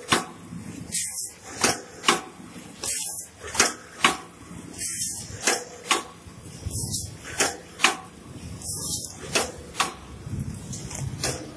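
Automatic toilet-paper and kitchen-towel roll packing machine running through its cycle about every two seconds. Each cycle brings a short hiss and sharp mechanical clacks, and the cycle grows quieter over the last couple of seconds.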